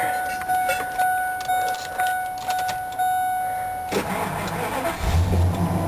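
A vehicle warning chime sounds steadily for about four seconds. Then the starter cranks the 2000 Ford Excursion's engine, which catches about a second later and settles into a steady idle.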